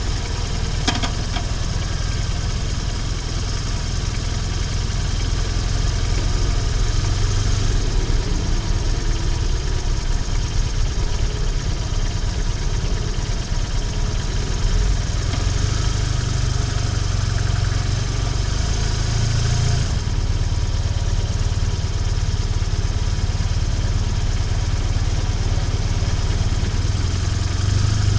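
BMW R1150GS motorcycle's flat-twin boxer engine running steadily, under a constant rush of wind and road noise on the bike-mounted camera's microphone.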